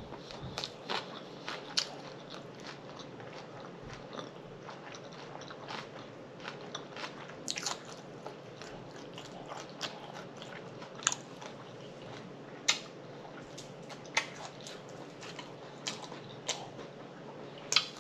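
A person chewing a mouthful of collard green wrap, with irregular crunches and clicks of the leaf and mouth throughout.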